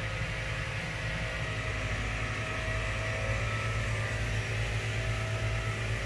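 Lit gas burner of a Lynx grill running: a steady rushing hiss over a low hum.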